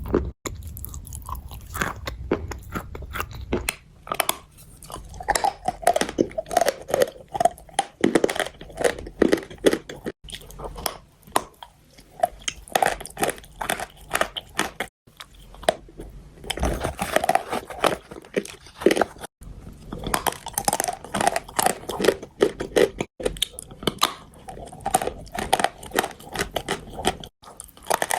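Chalk being bitten and chewed: an irregular run of many short, crisp crunches.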